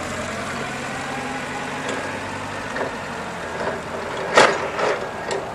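Forklift's rebuilt Nissan K21 LP-gas engine running as the truck drives away, fading as it gets farther off. A few sharp knocks near the end, the first the loudest sound here.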